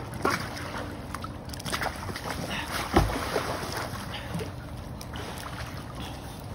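Pool water sloshing and lapping around an inflatable float, with a few light knocks and one heavier thump about three seconds in.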